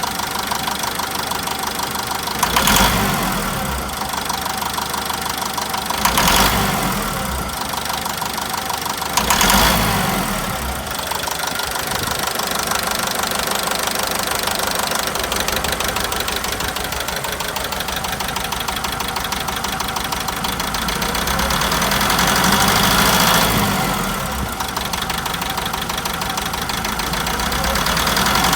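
Hyundai HD truck diesel engine idling with a rapid, steady knock, which the mechanic puts down to a faulty injector. It is revved briefly three times in the first ten seconds, and revs rise more slowly twice later.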